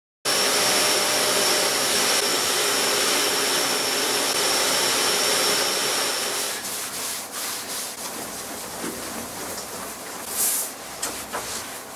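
Shop vacuum running steadily with a high whine as its hose nozzle is drawn over a perforated plywood bench seat; it stops about six and a half seconds in. After that come softer rubbing and light taps of a cloth wiping wood stain onto the seat.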